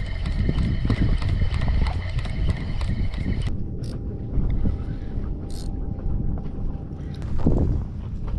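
Wind rumbling on the microphone while a spinning reel is cranked in, with a steady high whine during the first three seconds or so.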